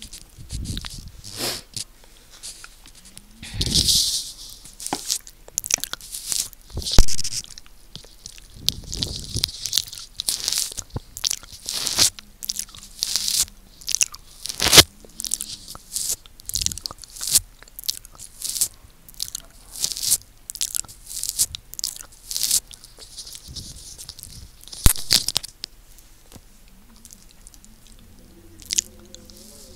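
Close-miked wet mouth sounds: licking and lip smacking right on a microphone, a fast, irregular run of moist clicks and smacks with a few longer slurps. They thin out over the last few seconds.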